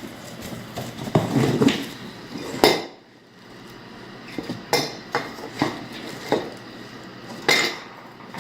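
Table legs and other parts of a flat-pack portable table knocking and clinking against each other as they are handled and taken out of their box. It is a string of sharp knocks, the loudest about two and a half seconds in.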